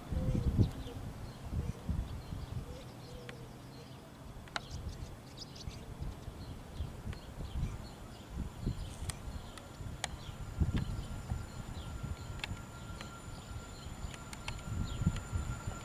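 Small birds chirping over gusts of wind buffeting the microphone. From about halfway on, a faint steady high whine comes in as the approaching EP07 electric locomotive and its train draw nearer.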